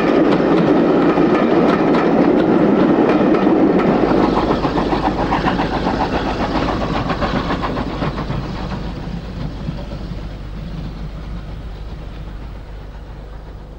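Steam-hauled passenger train running past, its coaches rumbling and clattering over the rail joints. The sound fades steadily over the second half as the train draws away.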